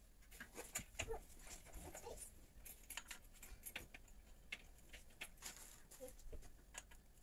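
Quiet room with faint, scattered clicks and taps of small parts being handled, and a few brief soft vocal sounds.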